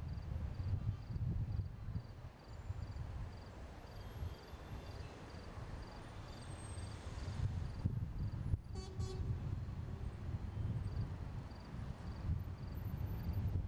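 Steady low rumble of city traffic heard from a rooftop above a busy boulevard, with a faint high chirp repeating about two to three times a second. A brief beep comes about eight and a half seconds in.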